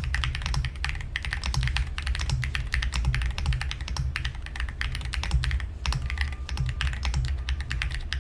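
Continuous typing on a Dusk67 wooden-cased 67% mechanical keyboard with Wuque Studio Jade switches on a carbon fibre plate: a fast, unbroken run of key clacks. A steady low hum sits underneath.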